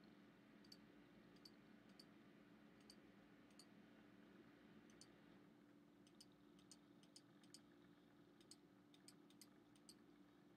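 Faint computer mouse clicks as points of an outline path are placed, coming unevenly and more often in the second half, some in quick pairs. A low steady hum lies underneath.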